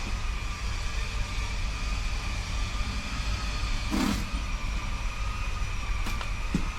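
A motor running steadily, with a low rumble and an even high whine, and a brief louder noise about four seconds in.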